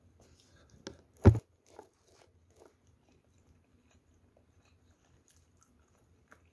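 Close-up chewing of a mouthful of fried rice, with faint crunches and small clicks. One loud, sharp crack comes a little over a second in.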